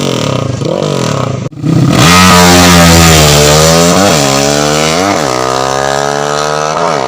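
Honda Blade 125 single-cylinder four-stroke engine with a racing carburettor being revved during carburettor setting: quick throttle blips, then held at high revs for about a second before easing down, then more sharp blips. The sound cuts out abruptly for a moment about a second and a half in.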